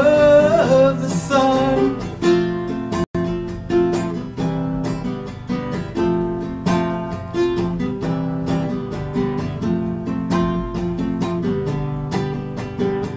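Acoustic guitar strummed in a steady rhythm in an instrumental stretch of a song, with a man's held sung note trailing off in the first second or so. The sound drops out completely for an instant about three seconds in.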